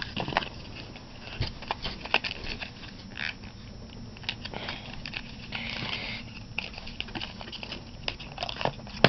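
Fingers handling and opening a small perfume-sample package: scattered light clicks and taps of packaging, with a short crinkling rustle about six seconds in.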